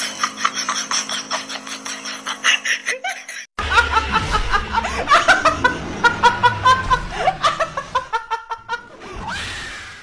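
A young woman laughing hard in quick, high-pitched bursts, starting about three and a half seconds in. Before that comes a rapid run of high-pitched pulses that cuts off abruptly.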